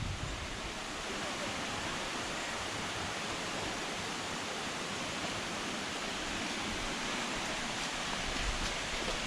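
Steady rush of flowing water from a stream or waterfall.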